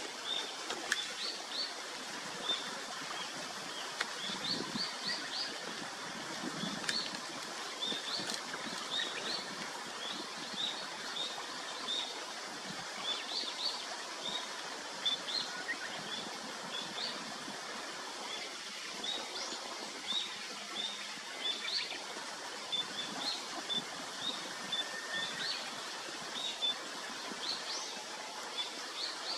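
Birds chirping: short, high notes in quick little runs, repeated every second or so, over a steady outdoor hiss.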